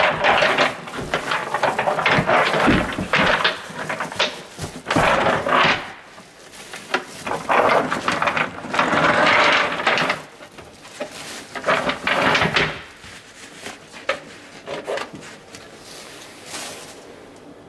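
Plastic bag rustling and crinkling in irregular bursts as a bag-lined waste bin is pushed into place under an automatic cat litter box, with a few knocks and scrapes. The handling noise turns softer and sparser over the last few seconds.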